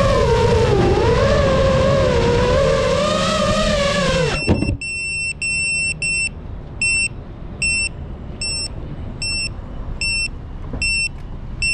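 FPV quadcopter's motors whining, their pitch rising and falling with the throttle, then stopping abruptly about four and a half seconds in. After that a high electronic beep repeats about every 0.8 s, typical of a landed quad's buzzer.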